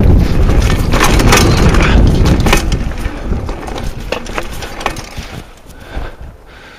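Mountain bike ridden fast down a dirt forest trail: a loud rumble of tyres over the ground with many sharp knocks and rattles from the bike. It fades away over the second half as the bike slows to a stop, leaving a few light knocks.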